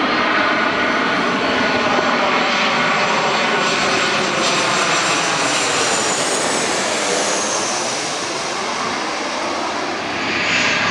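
Twin-engine jet airliner on landing approach passing low overhead: the steady rush of its jet engines, with a high whine that falls in pitch as it goes over and away.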